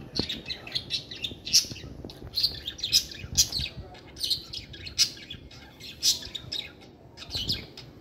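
Small parrots, budgerigars among them, chirping: a steady run of short, high chirps, several a second, one after another.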